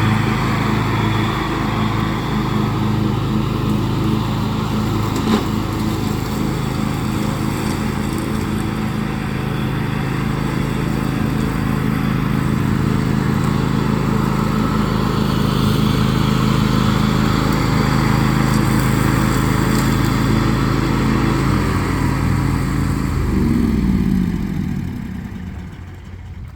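John Deere X500 lawn tractor engine running steadily under mowing load; about 23 seconds in its pitch falls and the sound dies away as the engine winds down.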